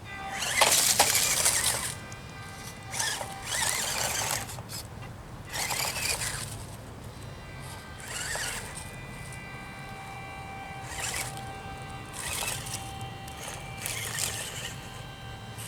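RGT 136240 1/24-scale micro crawler's small electric motor and geartrain whining in repeated throttle bursts as it tries to climb a steep boulder, about seven blips with the loudest about a second in.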